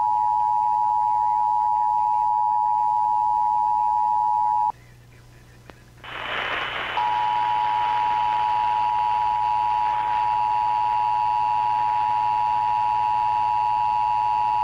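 Emergency Alert System two-tone attention signal, a steady dual beep just under 1 kHz, marking a required monthly test. It sounds for about five seconds, cuts out briefly, then comes back over a background hiss about seven seconds in and holds steady.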